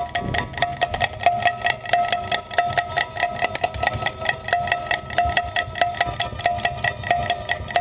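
Baul folk ensemble playing an instrumental passage with no singing: plucked strings and small hand cymbals (manjira) struck in a fast, even pulse over a steady ringing tone, with a drum underneath.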